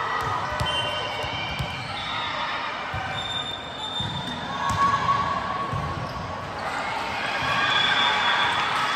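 Volleyball court sounds in a gym: the ball and players' feet thudding on the hard floor, with short high squeaks over a steady hum of crowd noise in the hall.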